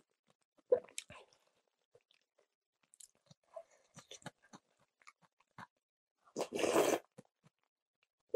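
Close-miked eating of kalguksu noodle soup: soft wet chewing and small mouth clicks, with a sharp click just under a second in, then one loud slurp of noodles and broth off a spoon about six and a half seconds in, lasting about half a second.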